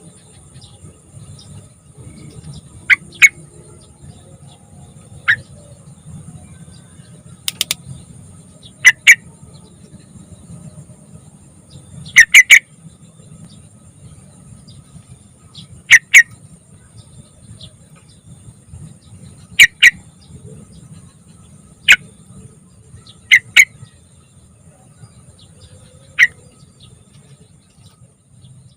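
Young sooty-headed bulbul giving short, loud, sharp calls every few seconds, several of them in quick doubles or triples.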